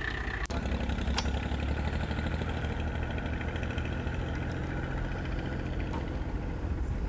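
An engine running steadily with a low drone, starting abruptly about half a second in.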